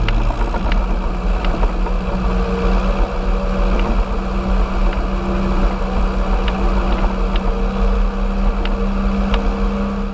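John Deere 6110's four-cylinder turbo diesel engine running at a steady speed under load while pulling a rotary tedder, heard from outside the cab. A few light ticks sound over the engine noise.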